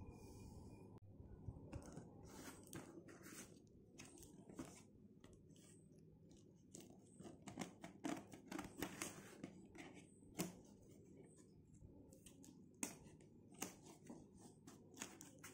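Scissors snipping through the packing tape and brown paper wrapper of a parcel, with the paper crinkling and tearing as it is pulled open. Faint, irregular snips and crackles, busiest about halfway through.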